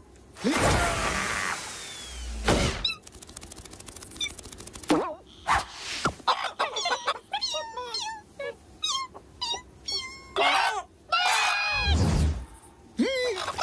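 Cartoon sound effects: a whoosh and a low thump in the first few seconds, then a run of quick, high clucks and squawks from cartoon hens, and another thump with a falling cry near the end.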